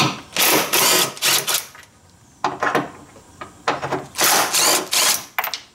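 DeWalt cordless driver with a long extension spinning bolts out of a car's air box, running in several short bursts.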